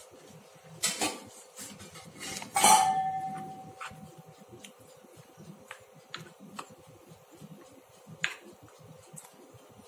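Spoon stirring maida and water into a paste in a small ceramic bowl, clinking against the bowl. A louder knock about two and a half seconds in rings on briefly, and lighter taps follow.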